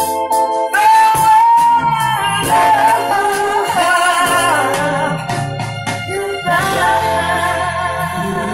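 A woman singing into a handheld microphone over backing music, with long held notes, the longest starting about a second in.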